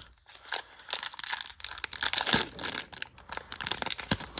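A 2024/25 Upper Deck Series 2 hockey card pack being torn open, its wrapper crinkling, with sharp clicks and rustles as the cards are handled.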